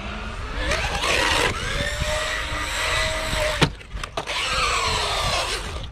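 Electric RC truck's motor whining as it speeds up, holds and eases off, over the hiss of its tyres on wet concrete. A sharp knock about three and a half seconds in, followed by a couple of smaller clicks.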